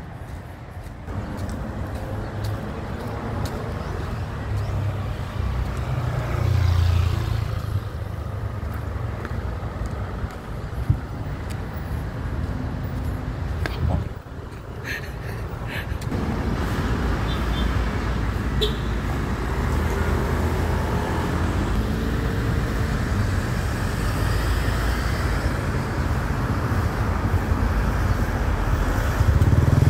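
Street traffic noise: cars passing on a city road, with a car going by near the end.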